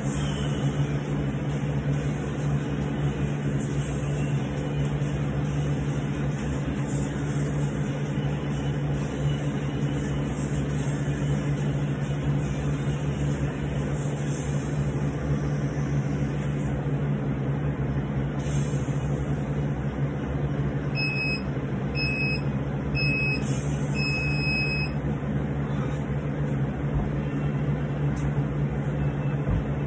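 Electronic interval timer beeping a countdown: three short beeps a second apart and then one longer beep, signalling the start of a 30-second work interval. A steady machine hum runs underneath, and there are a couple of low thuds near the end as dumbbell work begins.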